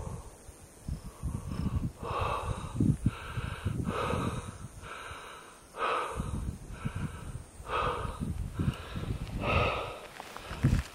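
A person breathing hard close to the microphone, with loud breaths about once a second, over low rumbling wind noise.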